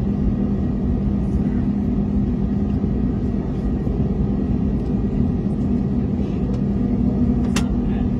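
Airbus A321neo jet engines and airframe heard from inside the cabin: a steady rumble with an even low hum. A short sharp click comes near the end.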